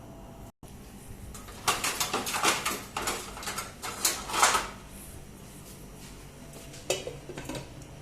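Kitchen dishes and utensils clattering, pots, pans and cutlery knocking together, in a run of about three seconds, then a shorter clatter near the end.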